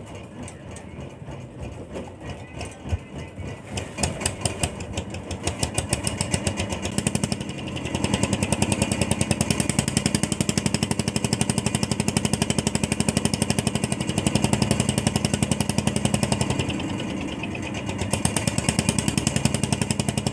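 A boat's engine thudding with a fast, even knock. It speeds up and gets louder from about four seconds in, runs hard and steady, eases back briefly near the end, then picks up again.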